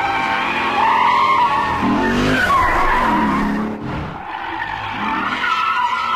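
Lexus IS F's 5.0-litre V8 revving hard under power while the rear tyres squeal in a drift, the engine note rising and falling. The sound drops briefly about four seconds in before the engine picks up again.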